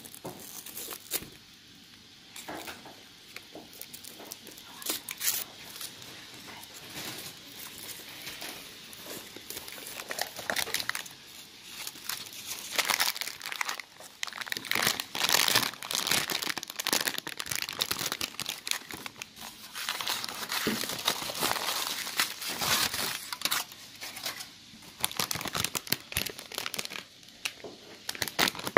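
Gold aluminium foil crinkling and tearing as it is peeled off a large hollow chocolate Easter egg, along with the crackle of a cellophane bag of chocolates being handled. Irregular rustling bursts, busier and louder in the second half.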